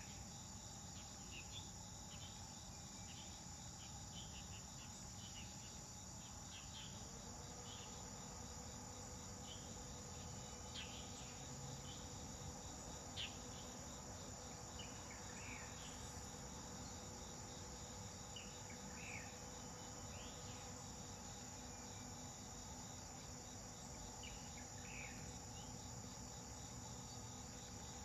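Steady high-pitched chorus of insects, like crickets, with a few short chirps scattered through it.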